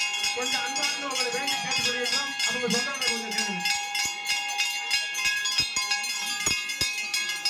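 Temple bells rung rapidly and without pause, their steady ringing tones over a crowd's voices, which fall away after about four seconds.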